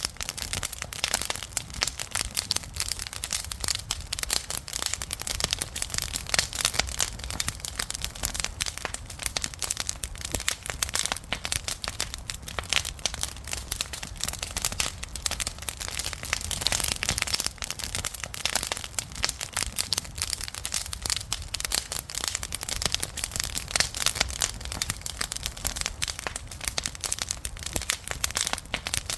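Wood campfire crackling, with dense, irregular snaps and pops, over a low steady rumble.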